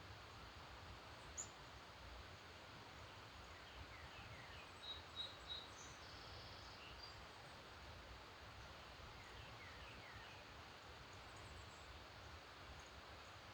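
Faint dawn birdsong: a few birds giving scattered high chirps and short falling notes over a steady background hiss, busiest in the middle and again about ten seconds in.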